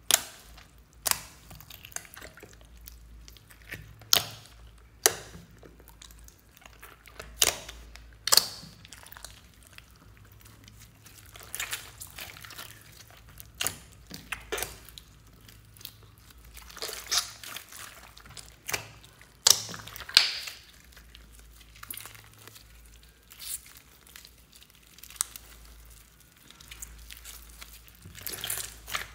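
Hands kneading and squishing a large mass of slime mixed with clay, foam beads and sequins in a glass dish. Irregular sharp pops and squelches come every second or two, with softer crackling between them.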